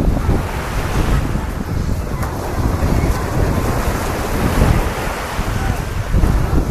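Wind buffeting the microphone in uneven gusts, over the steady wash of small waves breaking on the shore.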